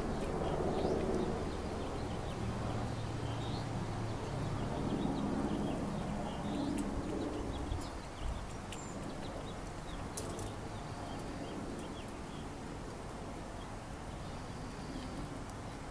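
Cat lapping water from a birdbath, with faint irregular ticks, while small birds chirp and a dove coos in the background.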